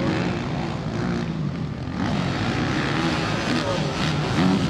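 Motocross motorcycle engines racing on the track, revving up and down repeatedly as the riders accelerate and shift, with more than one bike heard.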